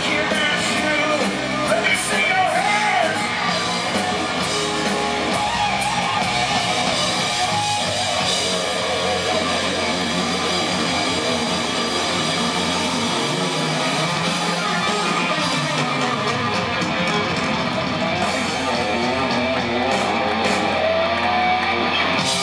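Live heavy metal band playing loudly: electric guitars, bass guitar and drums, heard from the audience.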